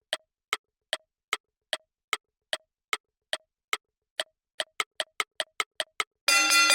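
A clock-like ticking sound effect, about two and a half ticks a second, that speeds up to about five a second over the last two seconds like a countdown running out. Near the end a loud, bright sustained chord cuts in.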